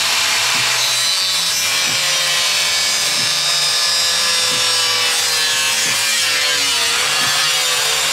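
Corded angle grinder cutting through a Novik Stone polymer siding panel: a steady, loud motor whine over a hissing grind. The pitch sags slightly about seven seconds in as the blade is pushed through.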